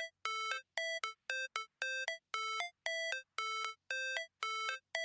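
Music: a sparse electronic melody of short, bright, ringtone-like notes in a repeating long-short rhythm, about two notes a second.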